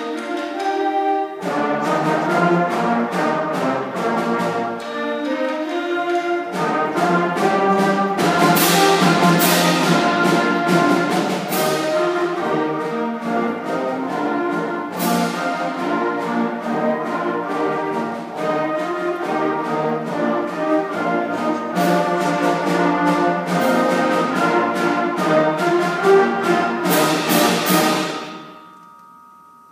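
Sixth-grade beginning concert band playing, brass to the fore, with sharp percussion hits through the middle and the closing bars. About two seconds before the end it stops on a final chord that rings away in the hall.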